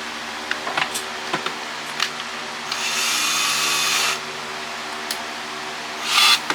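Power drill running in one steady whirr of about a second and a half, with a few handling clicks before it and a short burst of noise near the end, while an LNBF is being taken apart.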